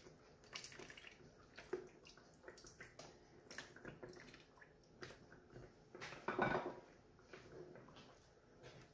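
Thinned crème fraîche dribbling from a carton into a pan of cream sauce, with faint drips and splashes. There is one louder, brief sound about six seconds in.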